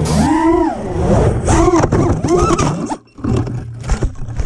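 FPV drone's motors and propellers whining, the pitch swelling up and falling back several times with throttle. The sound drops out briefly about three seconds in.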